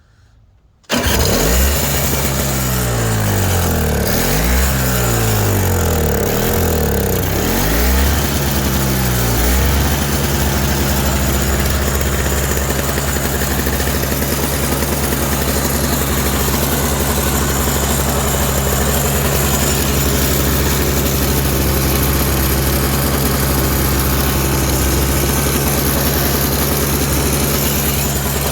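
Toro CCR 3650 snowblower's Tecumseh two-stroke engine catching about a second in, its speed rising and falling for several seconds, then settling into a steady run. It starts after a cracked primer bulb has been replaced and the engine primed.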